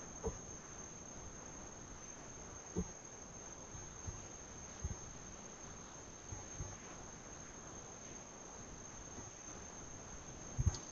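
Quiet hall room tone with a steady high-pitched whine and a few soft, low thumps.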